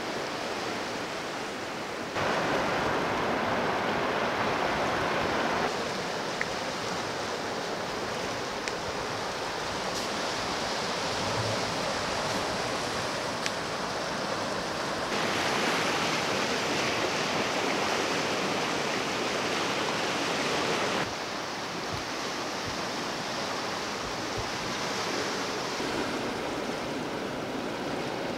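Steady wash of sea surf on a rocky shore, its loudness and tone changing abruptly a few times.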